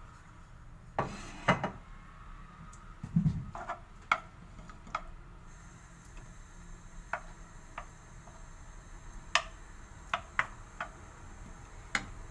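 Wooden spoon knocking and scraping against a nonstick frying pan while stirring raw chicken pieces in oil: irregular clacks, the loudest about a second in and around three seconds. A faint steady hiss of the oil beginning to sizzle comes in about halfway.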